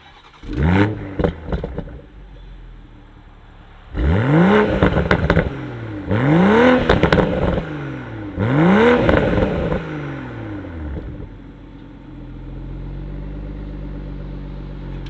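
2021 Toyota Supra on its stock exhaust in sport mode, starting up with a quick flare of revs. It then gets three throttle blips, each rising and falling in pitch with crackles from the exhaust, before settling to a steady idle.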